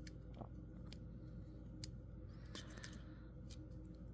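Faint, scattered metal clicks and small knocks of a Leatherman multitool being handled, its implements folded and unfolded.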